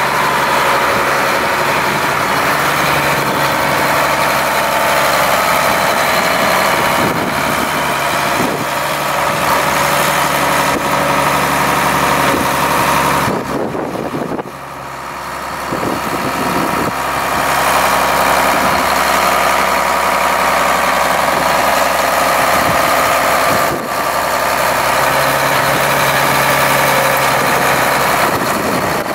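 Case IH 7130 tractor's 8.3-litre six-cylinder turbo diesel idling steadily, briefly quieter about halfway through.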